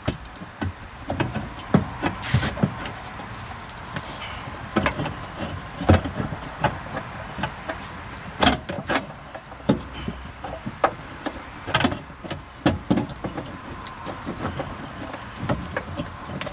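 Irregular clicks, knocks and rattles of the Bose amplifier and its cradle being worked up into place behind a car's dashboard, hard parts knocking against the dash, with two louder knocks about halfway and about three-quarters of the way through.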